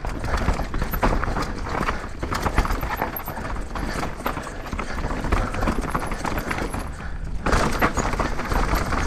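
Downhill mountain bike clattering and rattling at speed over rough, rocky trail: dense knocks from tyres, frame and chain, with a brief lull about seven seconds in before the clatter resumes.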